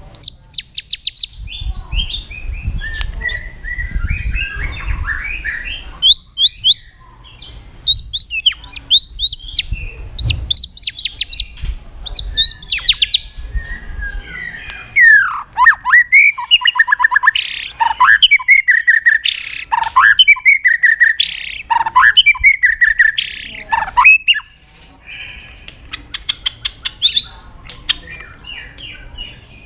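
White-rumped shama (murai batu) singing a long, varied song of rapid whistles, trills and steep sweeping notes, broken by a few short pauses. A low rumble sits beneath the first third.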